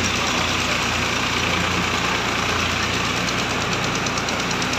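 Heavy construction machinery engines running steadily, a continuous low drone.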